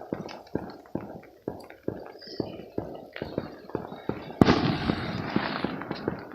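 Fireworks going off: a rapid string of sharp pops, about three a second, then a loud bang about four seconds in that breaks into a crackling fizz lasting a second or two.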